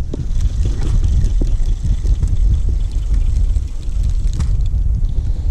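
Steady low rumble of wind buffeting the camera microphone on an open fishing boat.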